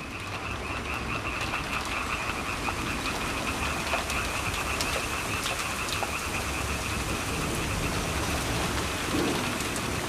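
A chorus of frogs calling in a fast, even trill over steady rain, fading in over the first second or two.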